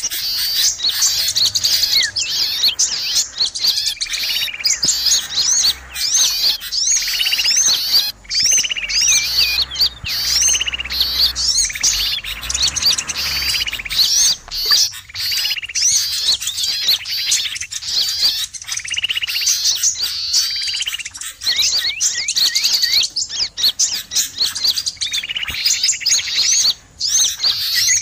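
Bird-lure recording of a noisy flock of small songbirds: a dense mix of high chirps and twitters, broken every few seconds by buzzy, rattling churrs, with sooty-headed bulbul (kutilang) calls mixed in. It is played to draw wild small birds in.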